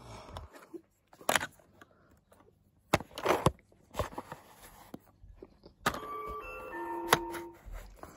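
Plastic clicks and knocks as Chuggington Interactive Railway toy trains are handled on the track, then about six seconds in a short electronic jingle of beeping tones at changing pitches from the toy set.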